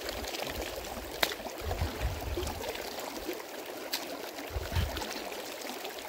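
Shallow glacial meltwater stream running over stones, with water splashing and dribbling from cupped hands as it is scooped up and drunk. There are a couple of small splashes and a few low rumbles.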